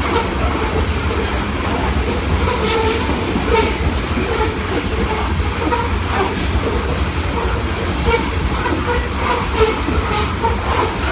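Loaded coal cars of a freight train rolling past: a steady rumble of steel wheels on rail, with a few sharp clicks as wheels cross rail joints, around three and ten seconds in.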